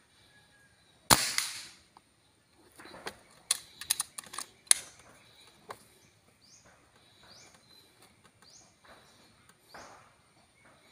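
An air rifle fires a single shot about a second in: one sharp crack that dies away within under a second. A couple of seconds later comes a quick run of sharp clicks as the rifle is handled.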